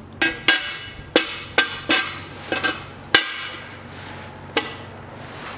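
Stamped sheet-steel oil baffle plate of a Toyota 3S-FE engine clinking against the cylinder block as it is set down and shuffled into place: about nine sharp metal-on-metal knocks, each with a short ring, the loudest about three seconds in.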